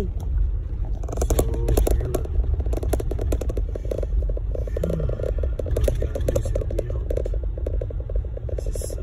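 Truck driving on a rough logging road, heard from inside the cab: a steady low rumble of engine and tyres with continuous rattling and clatter.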